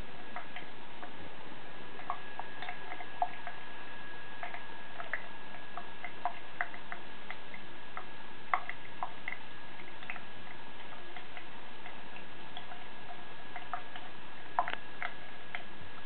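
A thin stream of water running from a tap into a ceramic sink, with irregular sharp ticks and small splashes as a cat's paw strikes the stream and the basin.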